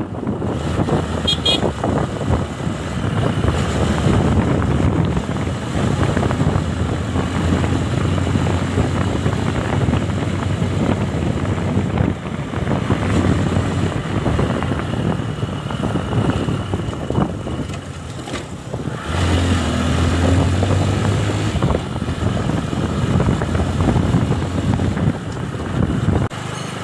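Motorcycle running along at road speed, its engine mixed with steady wind and road noise, the engine note climbing briefly about two-thirds of the way through.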